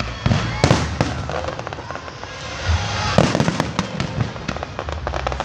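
Aerial fireworks bursting: a few sharp bangs, then a dense run of crackling bursts about three seconds in, over a low music soundtrack.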